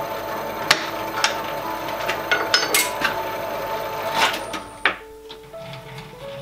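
Milling machine spindle running with a drill bit cutting through an aluminium bronze crosshead: a steady machine whine with several sharp metallic clicks and knocks. The machine stops about five seconds in.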